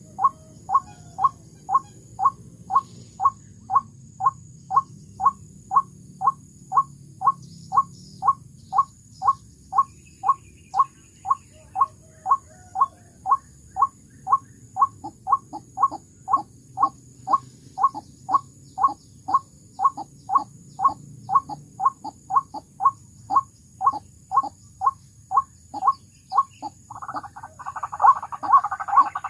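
White-breasted waterhen calls: a single short note repeated evenly about twice a second, breaking into a dense, rapid chatter near the end.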